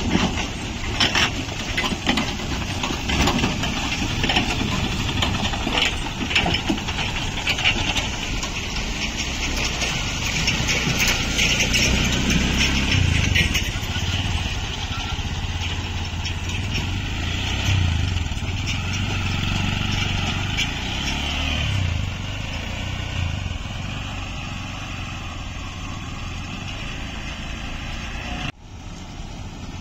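Small three-wheeler and mini-truck engines running as they drive slowly past through a muddy, potholed road. An auto-rickshaw's engine passes close by in the middle, and the sound cuts off abruptly near the end.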